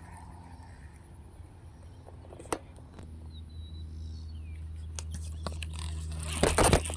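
A steady low motor hum that grows louder from about halfway, with a single sharp click and a few faint bird chirps, then a burst of loud crackling and clicking near the end.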